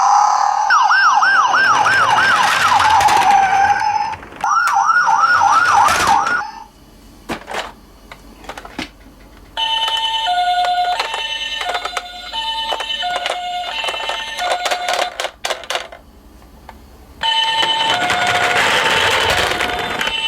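Electronic sirens from toy emergency vehicles: a fast up-and-down police-style yelp at first, then after a few seconds of clicking, an alternating two-note Japanese ambulance "pee-po" siren from about halfway in.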